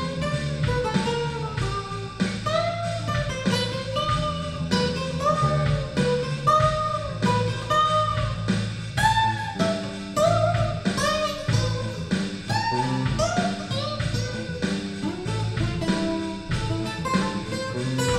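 Acoustic guitar playing a single-note lead solo with bent notes, treated with delay and reverb, over a funky backing rhythm section of bass and drums.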